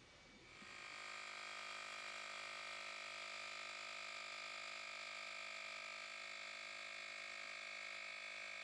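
Cordless handheld 120 W air compressor starting up just under a second in, then running steadily at an even pitch as it pumps air through its hose into a rubber ball.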